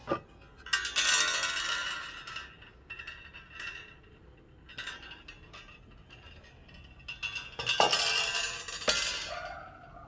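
Black Forest wall clock striking: two metallic strikes about seven seconds apart, each ringing out and fading over a couple of seconds, with fainter clinks between.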